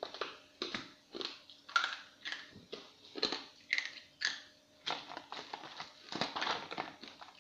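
A string of short, irregular rustles and clicks, roughly two a second, from jars and packets of cake-decorating sprinkles and sugar pearls being handled on a table.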